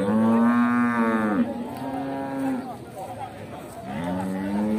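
Cattle mooing: a long moo that arches up and falls away fills the first two and a half seconds, and another long moo begins about four seconds in.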